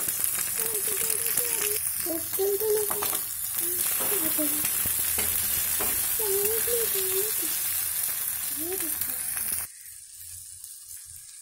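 Chopped tomato, carrot, onion and scrambled egg sizzling in hot oil in an aluminium kadai as a slotted metal spatula stirs and scrapes the pan. A faint wavering tone comes and goes behind it, and the sizzling cuts off suddenly near the end.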